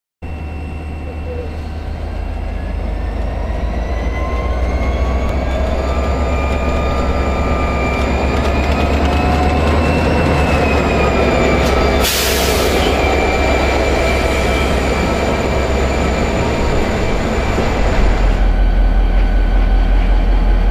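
A train locomotive running close by: a heavy rumble with whining tones that slowly rise and then fall. About twelve seconds in there is a brief loud hiss, and near the end the rumble turns deeper and louder.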